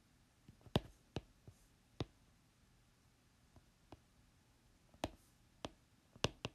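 Faint, irregular sharp clicks of a pen or stylus touching down on the writing surface as words are handwritten, about a dozen over several seconds with quiet in between.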